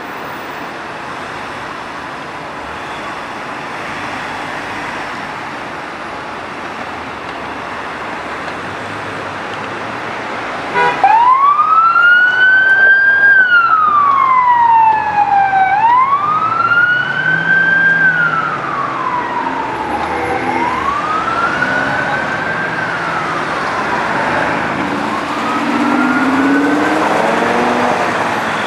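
Road traffic noise, then about eleven seconds in a police van's siren starts in wail mode: a slow rise and fall in pitch repeating roughly every five seconds, loud at first and fading as the van moves off. A second siren starts at the very end.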